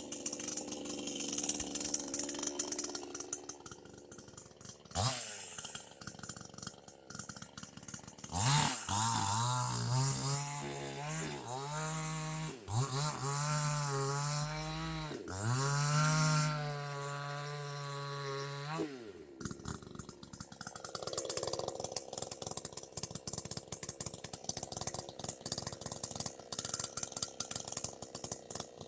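JPNTECH 60cc two-stroke chainsaw running. For about ten seconds in the middle it is held at high revs, the engine note sagging and recovering as it bites into the wood, then it drops back to a rattly lower running.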